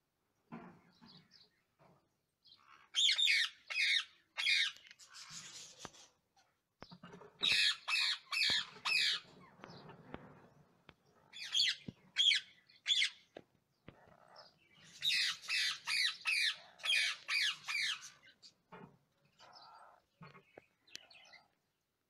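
Lutino Indian ringneck parakeet squawking in four bursts of rapid harsh calls, each a second or two long, with fainter calls between. These are a protective parent's defensive calls at the nest while a hand reaches in among its chicks.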